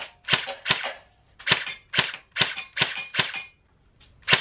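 HK 416C airsoft replica firing single shots on semi-auto: a string of about eight sharp cracks at an uneven pace, with a pause of about half a second a little after one second in and a longer pause near the end before one last shot.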